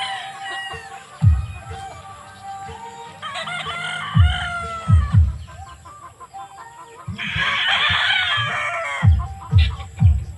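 Several gamefowl roosters crowing, their calls overlapping, with the thickest burst of crowing about seven seconds in. Under them, music with a deep bass-drum beat that quickens to about two beats a second near the end.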